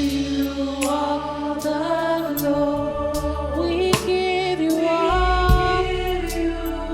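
Gospel worship music: sung vocals over a band with bass and drums keeping a steady beat.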